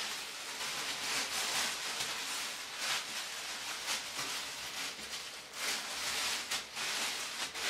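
Plastic shower cap rustling and crinkling as it is pulled on and adjusted over the head, with sharper crinkles near the end.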